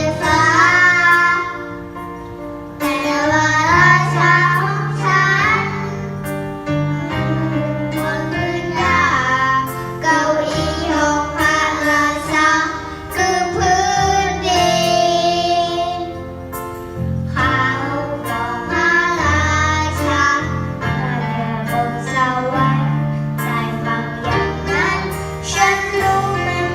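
A young girl singing a Thai song over a backing track with bass and guitar, through a PA sound system being tried out.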